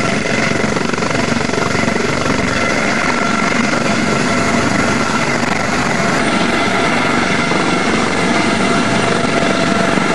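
Dauphin-family helicopter with a fenestron tail, its rotor and turbine running steadily with a high whine as it lifts off and hovers low.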